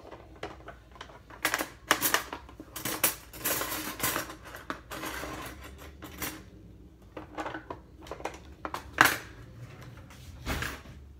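Kitchen utensils clattering and clicking as someone rummages for a spatula, with a denser run of rattling in the middle and one sharp knock, the loudest sound, near the end.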